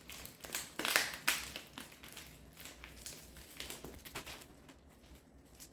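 Packaging being handled and opened by hand: a string of short crackles, rustles and taps, busiest in the first two seconds and thinning out after.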